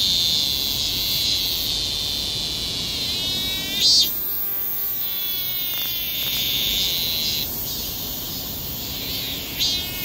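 Cicada singing: a high, steady buzz that breaks into rapid pulses around the end, with a short rising sweep about three seconds in.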